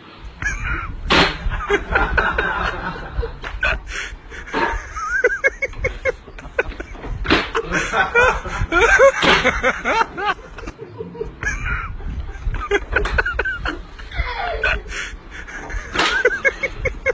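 A group of men laughing hard, with several sharp smacks through it.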